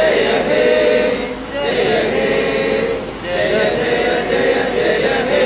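Voices singing a slow melody in long held notes, in phrases about one and a half to two seconds long.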